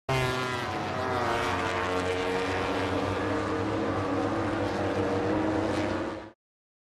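Racing motorcycle engine sound effect, running at high revs with a slight drop in pitch during the first second, then cutting off abruptly after about six seconds.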